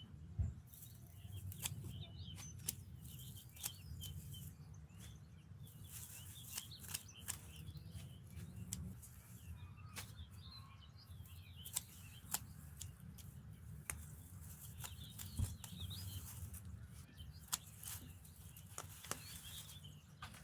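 Small birds chirping on and off, with many scattered sharp clicks and a steady low rumble underneath.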